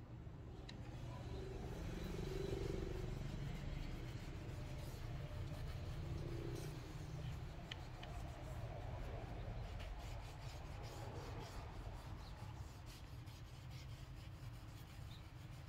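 Steady rubbing and scraping with a few faint clicks, over a low constant rumble.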